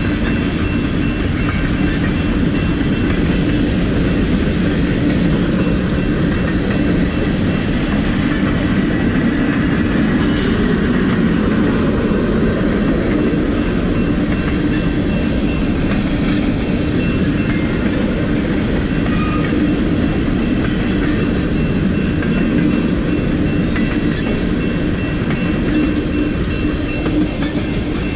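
A long train's railcars rolling past, a loud, steady rumble and clatter of wheels on the rails.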